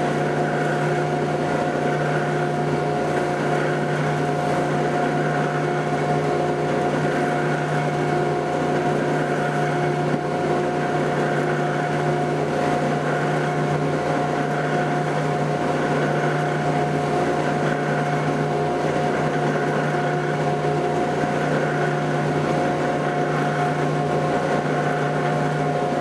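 Electric buffing machine running steadily with a constant hum and whine while a pocket knife is held against its spinning buff wheel for the final polish.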